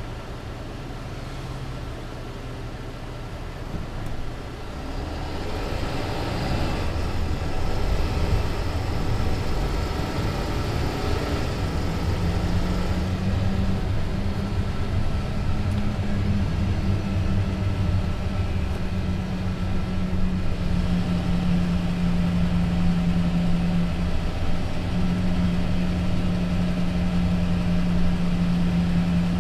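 Mercedes-Benz Citaro C2 LE city bus with a Voith automatic gearbox: the engine runs quietly at first, then from about four seconds in the sound builds as the bus gathers speed. From about twelve seconds on it settles into a steady running drone with a held hum.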